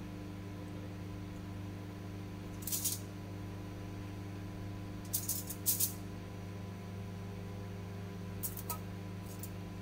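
Aluminium foil lining a baking tray crinkling in a few short crisp rustles as marinated potato wedges are laid on it one by one, loudest about five to six seconds in, over a steady low hum.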